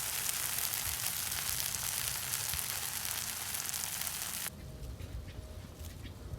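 Fried rice sizzling in a hot pan, a dense steady hiss. It cuts off abruptly about four and a half seconds in, leaving a much quieter low rumble.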